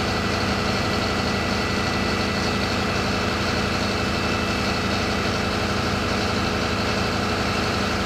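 Engine running steadily at idle, an even, unchanging drone with a thin constant whine above it.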